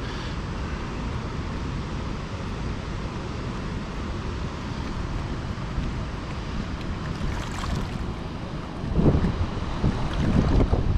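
Steady rushing of spillway water mixed with wind buffeting the microphone. Louder low bumps come in near the end.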